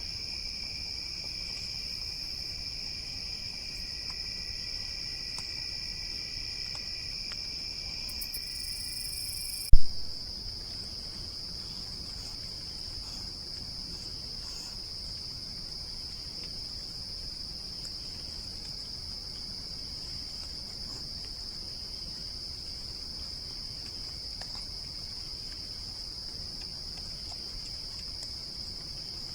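Steady chorus of night insects such as crickets, one high trill running throughout and a lower one alongside it. About ten seconds in there is one sharp, very loud click, and after it only the high trill goes on.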